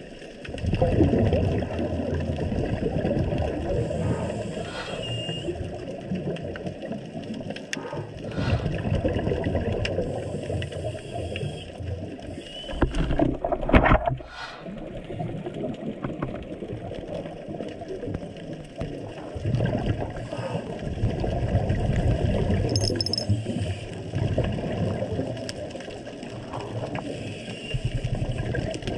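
A scuba diver's regulator heard underwater through a GoPro housing: rumbling bursts of exhaled bubbles swell and fade every few seconds over a low, muffled water hiss. About halfway through there is a short knock as the camera's extension arm is handled.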